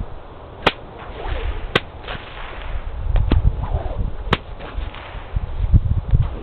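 A 6 ft nylon cow whip (bullwhip) cracking several times, each a sharp single crack a second or more apart, thrown as a Tasmanian Cutback so that it cracks behind the thrower's back.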